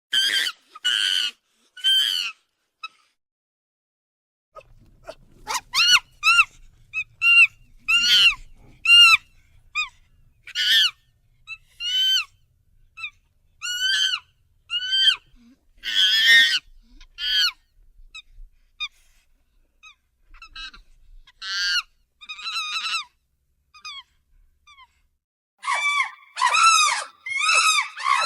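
Chimpanzee-style ape calls: a series of short, high-pitched hooting calls that rise and fall in pitch, about one a second with short silences between. Near the end they come faster and run together.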